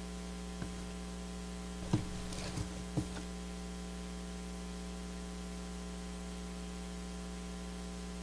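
Steady electrical mains hum from the church sound system. In the first three seconds it is broken by a few brief rustles and taps of paper close to the pulpit microphone as pages are turned.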